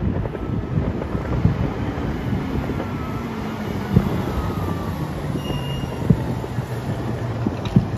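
Fire engine driving past, its diesel engine giving a heavy, steady low noise, with a few short knocks.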